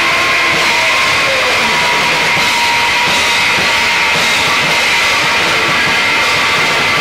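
Live Japanese harsh noise (Japanoise): a loud, unbroken wall of distorted noise with steady high tones running through it, no beat and no pauses.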